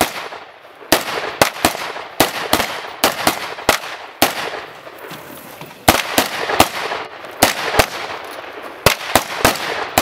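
Gunfire from a firing line of several shooters with AR-15-style rifles and handguns: many sharp shots at an irregular pace, some overlapping in quick strings, each with a short ringing tail.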